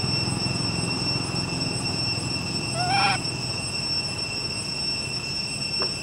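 Outdoor ambience of a steady high-pitched whine made of a few held tones over a low rumble, broken about three seconds in by one short pitched animal call, under half a second long and the loudest sound. A faint falling squeak follows near the end.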